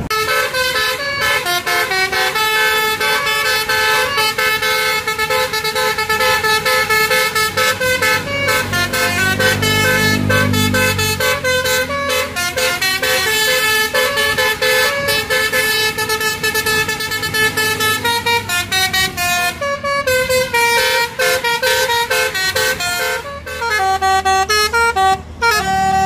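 Basuri multi-tone telolet air horn on a tour bus playing a melody of steady notes that switch rapidly from one pitch to the next. A low engine rumble swells underneath around ten seconds in as the bus passes.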